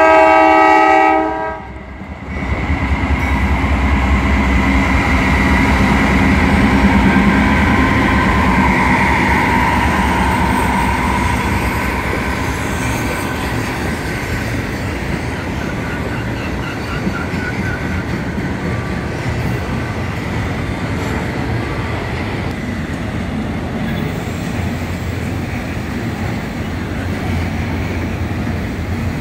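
Norfolk Southern GE C44-9W locomotive's air horn sounding a chord that cuts off about a second in; then the lead locomotives rumbling past, loudest a few seconds later, followed by a long train of autorack freight cars rolling by with steady wheel-on-rail noise.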